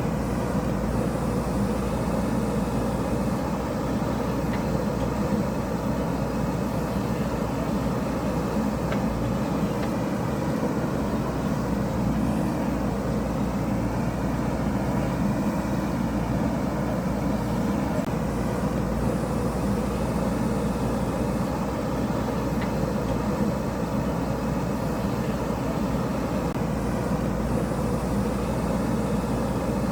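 JCB backhoe loader's diesel engine running steadily while digging.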